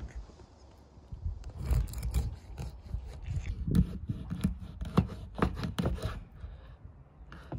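Large knife sawing through a whole catfish on a wooden cutting board as it is cut into steaks. Rasping strokes through skin and flesh with knocks of the blade on the board, starting about a second in and stopping near the end.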